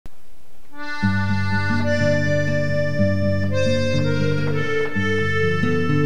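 Background music: sustained melody notes over a steady bass and chord accompaniment, the bass and chords coming in about a second in.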